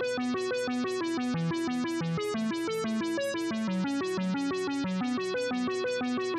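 Background music: a bright synthesizer keyboard tune of quick, evenly paced plucked notes over a bouncing bass line.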